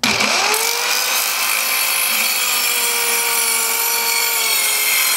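Dovaman MCS01A corded mini circular saw with a 24-tooth blade starting up, its motor whine rising quickly to speed, then cutting through three-quarter-inch plywood with a steady high whine and dense cutting noise.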